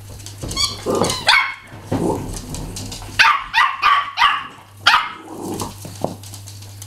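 Small terriers barking in play, in short sharp barks that come in clusters, with a quick run of about four barks near the middle.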